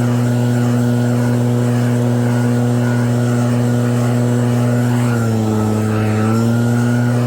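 Snow blower's motor running steadily with an even hum; about five seconds in its speed dips briefly and then picks back up.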